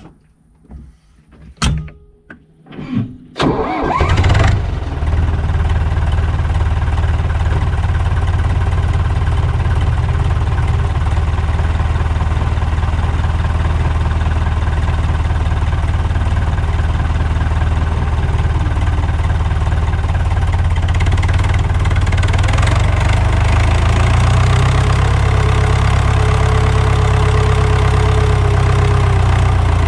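Deutz-Fahr DX 3.60 tractor's air-cooled diesel engine starting about four seconds in, after a few knocks and clicks, then running steadily. A little past the middle it gets louder and brighter, and a faint whine joins near the end.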